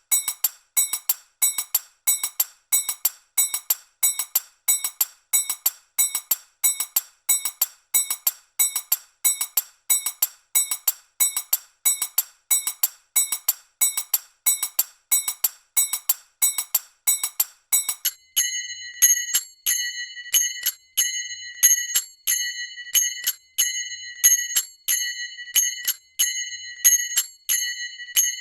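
Manjira, small brass hand cymbals, struck together in a steady looped rhythm at 92 bpm, each clash ringing briefly. About two-thirds of the way through the pattern changes to strokes that ring on longer with clearer tones.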